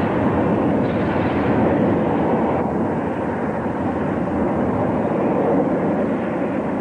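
Steam locomotive in an uncontrolled wheel slip, its exhaust and escaping steam a steady, loud rush with no separate beats.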